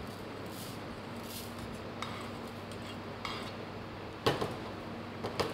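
A chef's knife scraping across the top of a cup of rice to level it, with faint short scrapes, then two sharp metal knocks from the cup on a metal sheet pan near the end.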